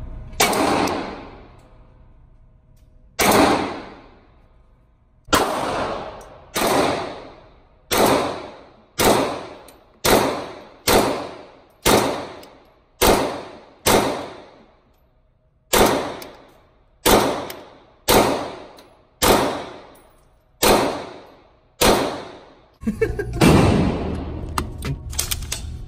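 B&T APC9 9mm carbine firing about seventeen single shots at an unhurried pace, each crack followed by a ringing echo off the walls of an indoor range. The shots stop near the end.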